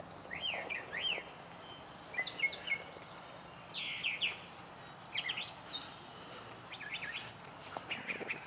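Small birds chirping: quick clusters of short, high sweeping notes every second or so, over faint outdoor background noise.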